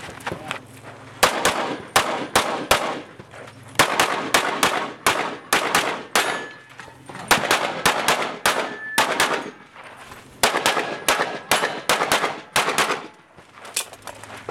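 Rapid handgun fire from a competition shooter working through a stage: quick strings of shots in four or so bursts, with short pauses between them while he moves between shooting positions.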